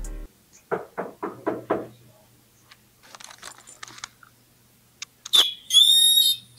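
Knuckles rapping on a room door: five quick knocks, about four a second, about a second in. Near the end a loud, shrill high-pitched tone sounds for about a second.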